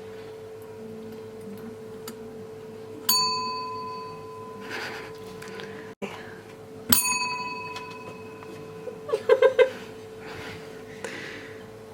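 A small bell struck twice, about four seconds apart, each a clear ding that rings on and fades away. A few quick knocks follow near the end, over a faint steady hum.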